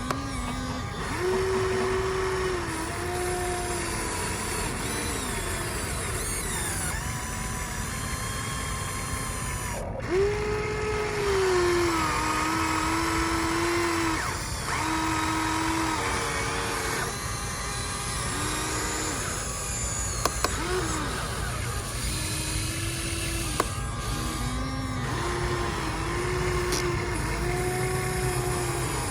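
Radio-controlled model excavator's electric motors whining in short runs of one to two seconds, the pitch stepping up and down as the machine is worked, over a steady low rumble.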